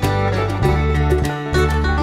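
Background music: an acoustic tune of plucked strings over a steady bass line.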